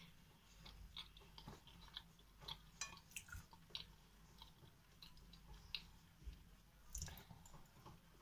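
Quiet, close-miked chewing of crumbly cake: soft crunches and wet mouth clicks, coming irregularly.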